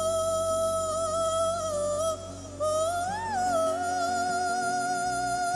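Background song with a high sung voice holding long notes with a slight waver, over a steady accompaniment; the voice breaks off briefly about two seconds in and swoops up and down once a little after the middle.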